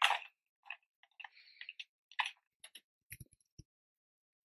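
Small clicks and light rustles as a Louis Vuitton Mini Pochette Accessoires in Damier Ebène canvas is handled and unzipped, its metal zipper and gold chain clicking. There are a few dull knocks a little past halfway.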